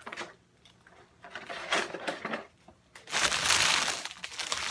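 Foil trading-card pack wrapper being handled and crumpled: light rustles and clicks at first, then about three seconds in a loud, dense crinkling.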